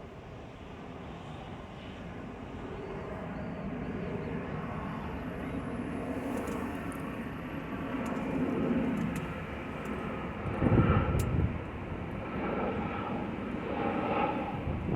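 Jet engines of a Boeing 737-800 airliner flying over on its approach, a broad rumble that grows steadily louder. Two brief louder low buffets come about eleven seconds in and near the end.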